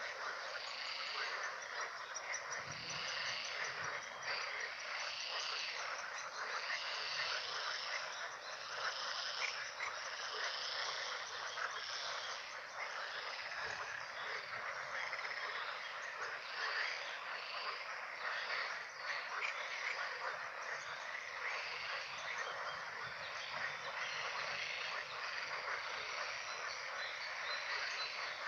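A dense chorus of many frogs croaking at once, steady and unbroken, with countless short overlapping calls.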